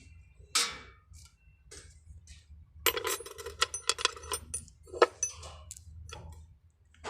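Metal tools and small metal parts clinking and clattering. There is a sharp click about half a second in, then a busy run of quick metallic taps and clinks from about three to six seconds in.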